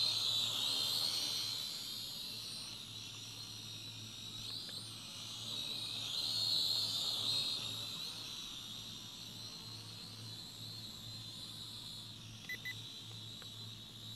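Syma X5UW toy quadcopter's motors and propellers whining high, the pitch wavering as the drone works against wind gusts. It is louder in the first second and again about six to seven seconds in, and fainter as it flies farther off. Two short beeps come about twelve and a half seconds in.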